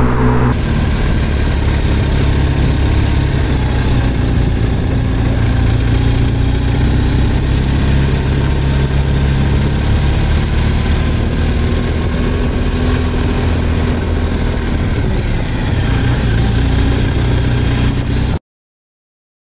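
BMW R 1250 GS Adventure's boxer-twin engine running under way at a fairly steady pace, heard from the bike with wind and road noise over it. There is a sudden change in the sound about half a second in, and it cuts off abruptly near the end.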